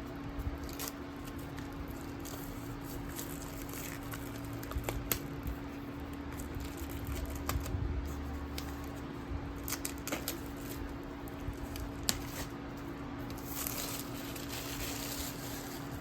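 Hands handling paperback colouring books and their packaging: scattered light taps and clicks, with a rustle near the end, over a steady low hum.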